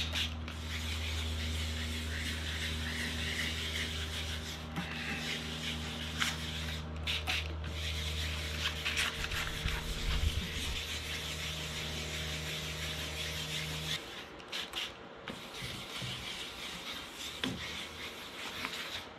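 Fine wet sandpaper (2000 grit) rubbing steadily over a plastic headlight lens as the oxidised surface is wet-sanded. A low steady hum runs beneath it and stops about fourteen seconds in.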